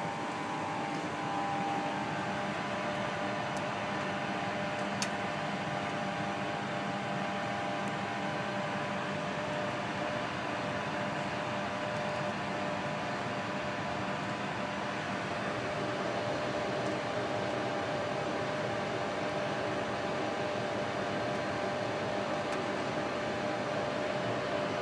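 Laminar flow cabinet's blower fan running steadily, a constant airy hum with a few faint steady tones in it. A small click about five seconds in.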